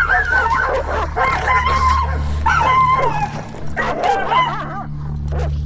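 Dog barking and yelping in a string of short pitched calls, over a low steady hum.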